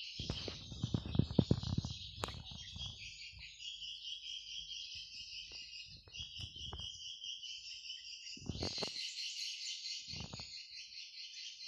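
Dense, continuous high twittering of swiftlets, from the swiftlet-house calling sound and the swiftlets answering it, growing stronger near the end. Dull knocks and rumbles come in the first few seconds and twice more near the end.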